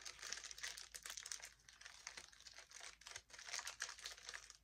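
Plastic ration packets crinkling and rustling as they are handled, a dense run of small crackles with no pause.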